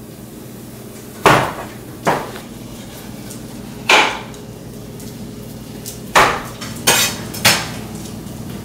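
Metal kitchen utensils and cookware clanking: six sharp knocks at uneven intervals, each ringing briefly.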